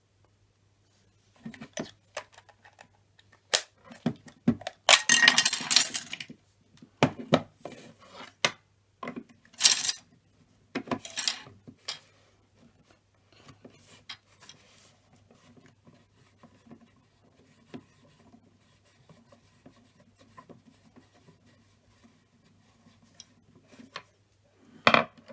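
Plastic casing of a green emergency door release alarm being opened up by hand: irregular clicks, scrapes and rattles of small plastic parts, busiest in the first half, with one louder rattle near the end.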